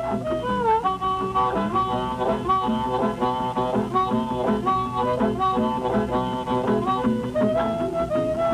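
Instrumental background music: a quick, even run of short notes over a steady low accompaniment.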